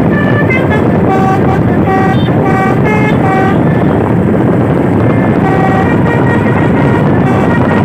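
Basuri v3 telolet horn on a long-chassis truck playing a quick melody of short notes at changing pitches, then a pause and one longer note, over loud, steady road and engine noise.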